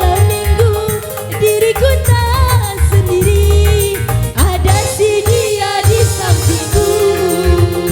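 Dangdut remix music: a bending, ornamented lead melody over a heavy pulsing bass and an even, driving percussion beat.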